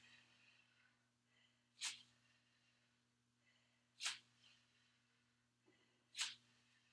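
Three short, faint, sharp exhalations, one about every two seconds, in rhythm with dumbbell lateral raises and calf raises.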